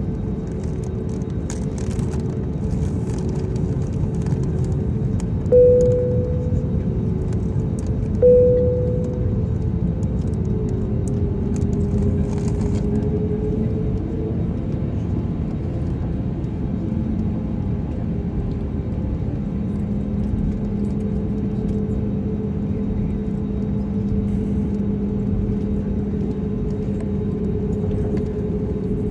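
Airbus A320neo cabin noise while taxiing: the engines' steady rumble with a faint whine running through it. Two short chimes ring about three seconds apart, some six seconds in.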